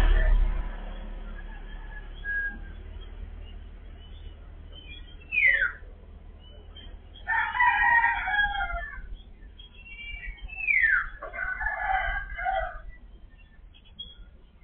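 A rooster crowing twice, a few seconds apart, each crow led by a quick falling note. A loud rushing noise fades out in the first second.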